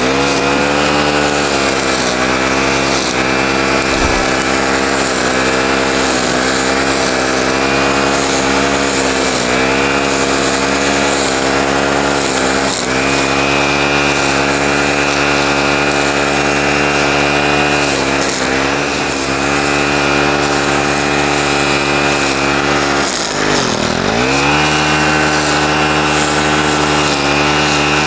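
Gas-powered string trimmer (weed eater) running at high revs while cutting weeds. The engine speed sags briefly a few times and drops sharply about 24 seconds in, as the throttle trigger is let off, then climbs straight back.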